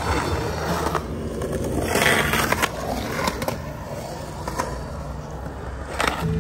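Skateboard wheels rolling over rough asphalt, with several sharp knocks of the board; the loudest burst of rolling and clatter comes about two seconds in.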